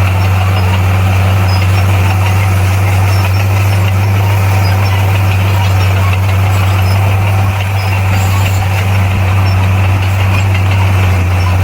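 Komatsu D58P bulldozer's diesel engine running with a steady, deep drone.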